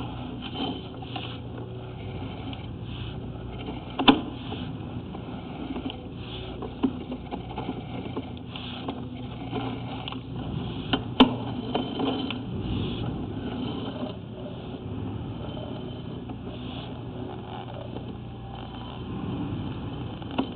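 Steady low hum with faint handling rustle and two sharp clicks, about four and eleven seconds in.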